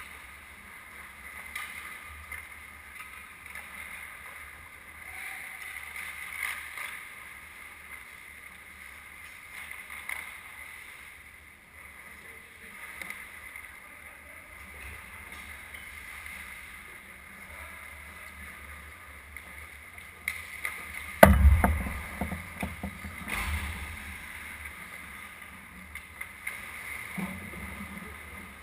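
Ice hockey rink ambience: a steady hum with scattered clicks and scrapes of play on the ice, then a sudden loud bang about three-quarters of the way in, followed by a few smaller knocks.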